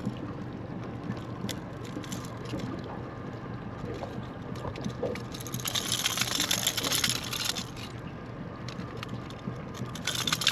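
Water splashing and trickling, loudest for about two seconds midway, over a steady low hum.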